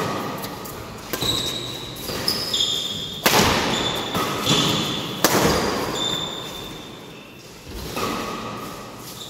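Badminton rackets striking a shuttlecock in a doubles rally: about six sharp hits, the loudest a little over three and about five seconds in, each echoing in a large hall. Between the hits come short high squeaks of court shoes.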